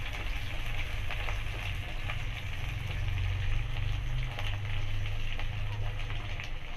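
Sliced onions sizzling steadily in hot oil in a metal kadhai, stirred with a wooden spatula, over a steady low hum.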